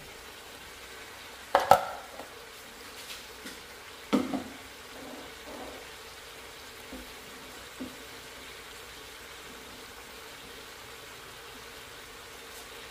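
Oxtails and vegetables sizzling steadily in a pot, with sharp clanks of a utensil against the pot, the loudest a little under two seconds in and another about four seconds in, then a couple of lighter taps.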